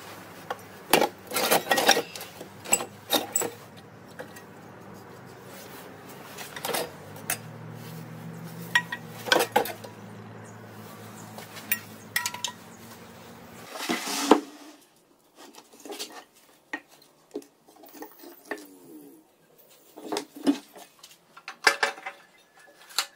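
Metal parts knocking and clinking together as they are handled, in scattered separate strikes. A steady low hum runs underneath and cuts off suddenly partway through.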